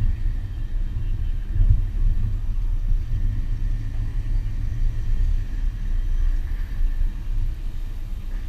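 A 2001 Subaru Forester driving over wet sand, heard as a steady, deep, muffled rumble of engine and tyres through a camera mounted on the outside of the driver's window.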